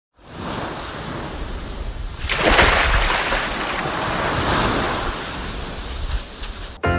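Ocean surf: a wave washes in and breaks, loudest about two and a half seconds in, followed by a steady hiss of surf that cuts off suddenly near the end.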